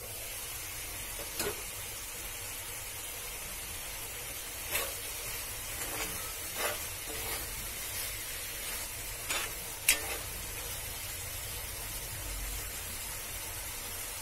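Liver-and-yogurt curry sizzling steadily in a cast-iron pan while a spoon stirs it, scraping and knocking against the pan about half a dozen times, the loudest knock near ten seconds in.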